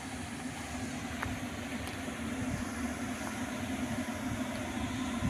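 Steady hum of a wind turbine's machinery running inside the tower, with an uneven low rumble of wind on the microphone.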